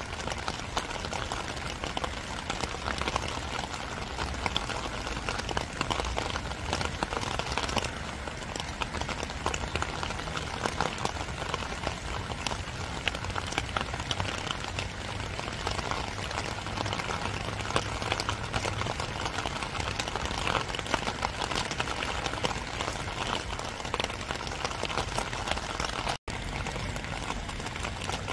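Steady rain falling, a dense patter of drops over a low rumble. The sound cuts out for an instant near the end.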